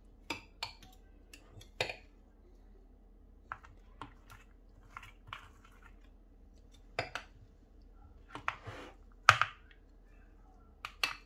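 Metal spoon scraping minced garlic out of a glass bowl and tapping and pressing it into plastic ice cube trays: scattered short clicks and scrapes, the loudest about nine seconds in.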